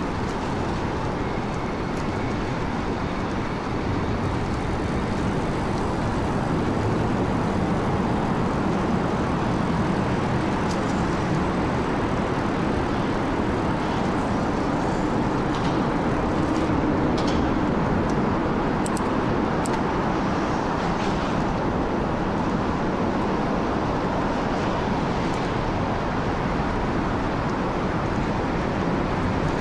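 Steady rushing road noise from riding a 2000 W e-bike with a geared motor: tyres and wind over the microphone, an even rush at a constant level with a few faint ticks in the middle.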